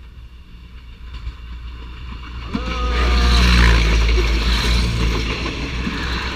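A train passing: a low rumble builds and is loudest about halfway through, and its horn sounds a held chord of several tones for about a second, starting about two and a half seconds in.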